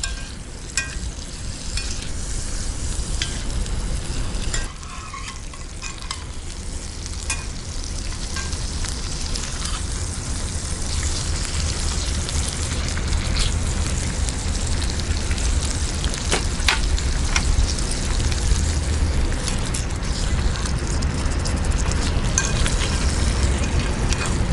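Salmon fillets sizzling in butter in a cast iron skillet: a steady frying hiss, with a few short clicks of a metal spatula against the pan as the fillets are turned.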